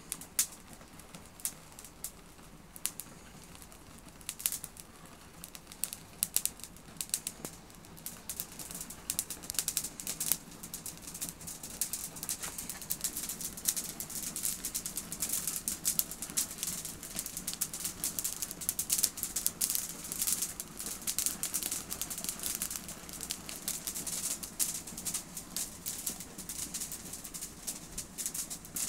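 Dry fir branch burning, its needles crackling and popping. The crackle is sparse at first and grows dense and louder from about eight seconds in, over a low rushing of flame.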